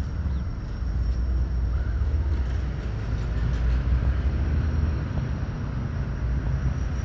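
Steady low rumble of outdoor background noise with a faint, steady high-pitched tone above it.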